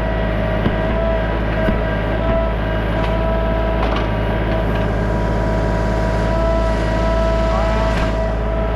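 The diesel engine of a John Deere 3025E compact tractor running steadily as it powers the 340B backhoe, with a steady high whine over it and a few faint knocks.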